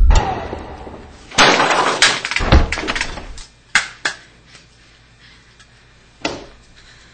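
A music sting dies away, then about a second and a half in comes a loud crash with a rattling clatter. A handful of sharper knocks follow and thin out, the last one about six seconds in.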